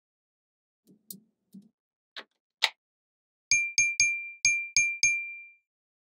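Soft taps and clicks of magnetic balls being pressed onto a magnetic-ball model. From about halfway through come six quick, sharp metallic dings, each ringing briefly at the same high pitch.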